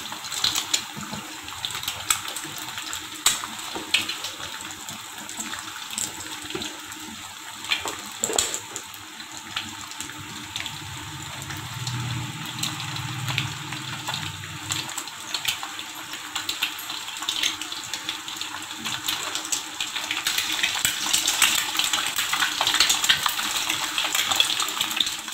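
Egg frying in hot oil in a frying pan: a steady sizzle with constant small crackles and pops, growing denser and louder in the last few seconds.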